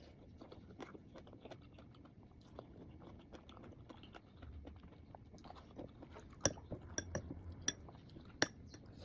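Close-up chewing and crunching on mango with spicy shrimp paste, a steady run of small wet crunches, with several sharper clicks in the second half.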